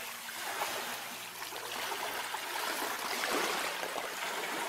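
Shallow seawater lapping and sloshing, a steady even wash.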